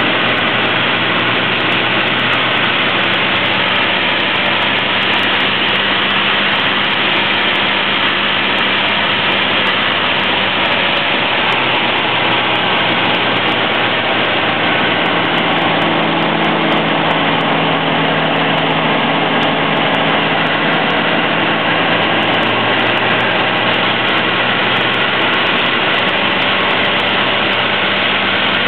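EG Voyager ultralight's engine running steadily in flight, heard from inside the cockpit together with loud rushing airflow. The engine note shifts slightly about halfway through.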